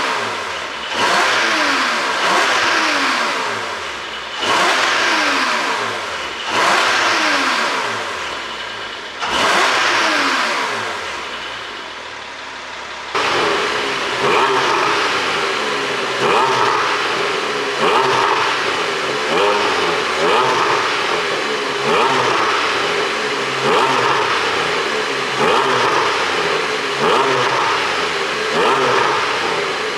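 Porsche 718 Boxster GTS 4.0-litre flat-six, ECU-tuned for exhaust pops, revved in several sharp throttle blips. Each blip falls back slowly with crackling on the overrun. From about a third of the way in the engine holds a steadier note, with short, even rev blips about once a second.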